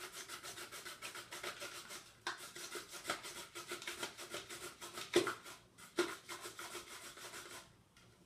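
Carrot being grated on a hand grater, quick even rasping strokes that stop near the end.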